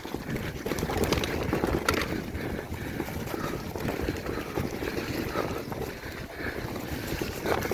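Wind buffeting the microphone over the steady rumble and rattle of a mountain bike ridden over a muddy trail.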